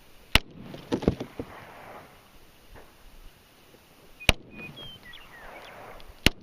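Three shots from a Glock 17 9mm pistol: one just after the start, another about four seconds later and a third two seconds after that, each trailing off in a rolling echo.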